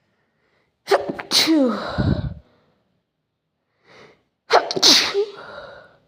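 A person sneezing twice, about three and a half seconds apart; each sneeze starts sharply and trails off with a falling voiced tone.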